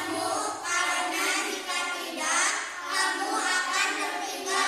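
Children's voices singing, with bright, high voices.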